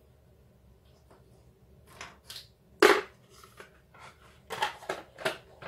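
Plastic pastry cutters clicking and knocking against each other and the worktop as one is picked out: two light clicks, a sharper knock about three seconds in, then a quick run of clicks near the end.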